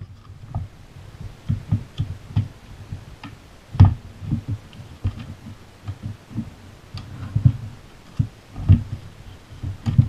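Irregular low thumps and knocks from hands handling the snow thrower attachment's plastic belt housing while the drive belt is worked back onto its pulleys against the spring tensioner, with a few light clicks. The loudest knock comes about four seconds in.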